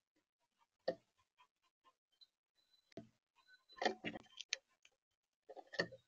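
Irregular sharp taps and knocks against the bird feeder, close to its built-in camera microphone: a single tap about a second in, a quick cluster of them around four seconds in, and another run near the end.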